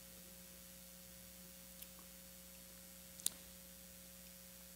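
Near silence: room tone with a steady electrical mains hum, broken by a faint click a little under two seconds in and a sharper click about three seconds in.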